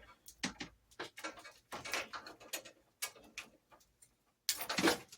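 Knife blade scraping along a wire's insulation in a series of short, uneven strokes, one or two a second, with a louder, longer rasp of cutting near the end.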